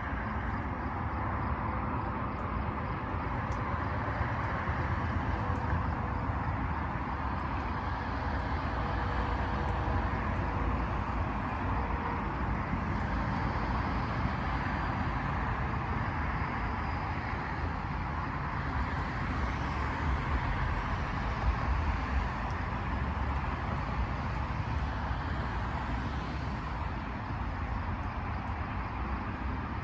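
Steady noise with a low rumble that holds even throughout, without distinct events.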